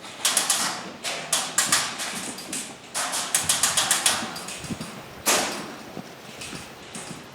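Airsoft guns firing in short rapid bursts of sharp clicks, three bursts in the first four seconds, then a single louder crack a little after five seconds.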